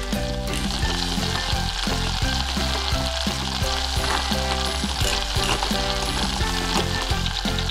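Steady sizzling like food frying in a pan, starting about half a second in, as a toy pot is stirred, over light background music.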